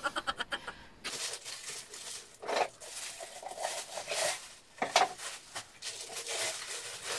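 Clear plastic wrapping crinkling and rustling in irregular crackles as it is handled and pulled around a juicer.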